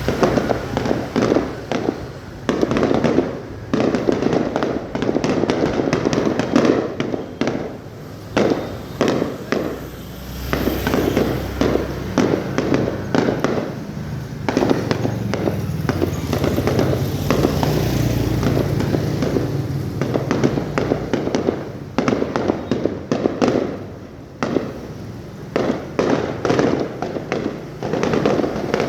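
Fireworks display: a rapid, unbroken run of bangs and crackles from many shells bursting, over a low rumble of heavier booms.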